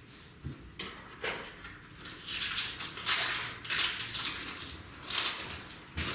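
Trading cards and booster-pack wrappers being handled: a few soft taps, then about three seconds of dense paper-and-foil rustling, with another tap near the end.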